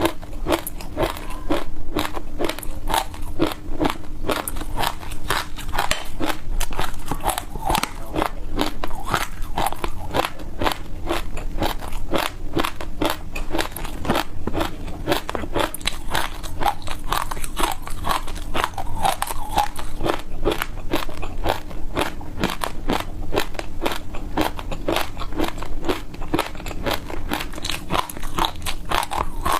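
Close-miked eating: continuous rapid crunching and chewing, several crisp crunches a second, of frozen ice with passion fruit and its seeds.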